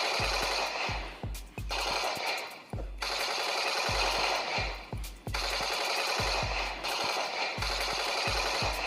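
Electronic toy gun's sound chip playing rapid machine-gun fire through its small speaker, in rattling bursts of one to two seconds with brief pauses between them.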